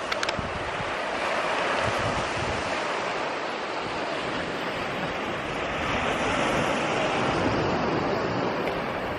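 Ocean surf washing steadily against the shore, with wind buffeting the microphone.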